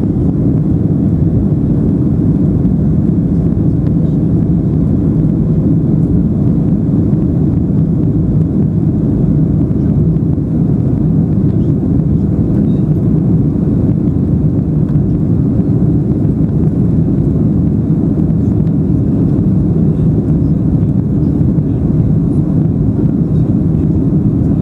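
Aeroplane cabin noise in flight: the steady, low roar of the engines and the air rushing past, unchanging throughout.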